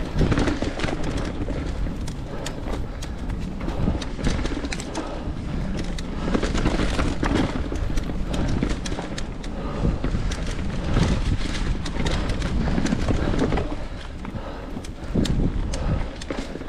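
Santa Cruz Nomad mountain bike descending a rocky trail: a steady rumble of tyres over dirt and rock, with a rapid, irregular clatter of knocks as the bike hits rocks and roots.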